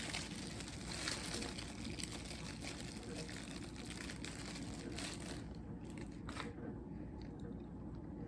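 Slime being squeezed and pulled by hand, giving wet crackles and small sticky pops that thin out about five and a half seconds in.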